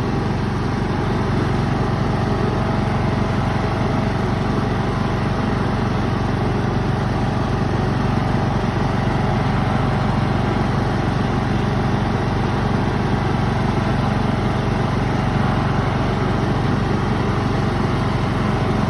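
Ride-on lawn mower engine running steadily while mowing, with no change in speed.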